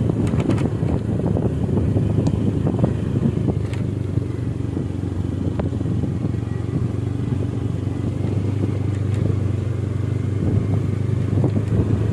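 Motorcycle engine running steadily while riding, a constant low hum with road and air noise.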